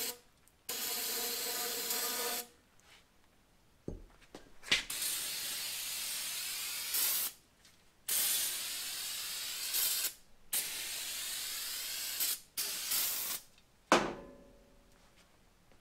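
Aerosol can of brake parts cleaner spraying into a motorcycle fork tube: about five hissing bursts of one to two seconds each, with short pauses between them. About fourteen seconds in, a sharp knock with ringing.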